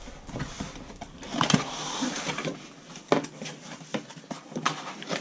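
Cardboard boxes being handled: a scraping rustle of cardboard rubbing on cardboard about a second and a half in, with a few short sharp knocks through the rest.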